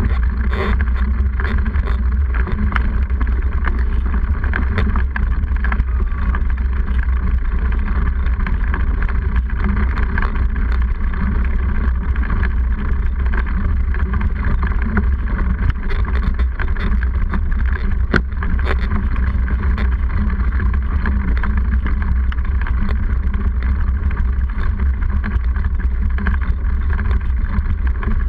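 Steady rumble of wind and road vibration picked up by a bike-mounted action camera as a mountain bike with a knobby front tyre rolls along a paved path, with scattered small clicks and rattles.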